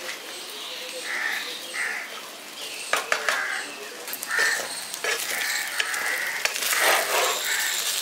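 Spatula stirring flattened-rice pulao in a frying pan, scraping with a few sharp knocks against the pan around the middle. Animal calls repeat in the background.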